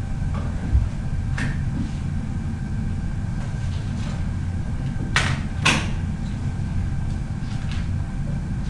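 Steady low rumble of background noise, with a soft thump about a second in and two sharp clicks half a second apart a little past five seconds.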